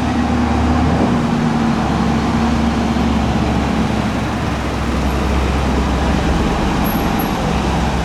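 County 1454 tractor's diesel engine running steadily, a loud low hum.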